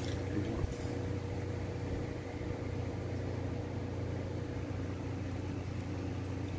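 A steady low machine hum with a faint steady tone in it, running evenly without change.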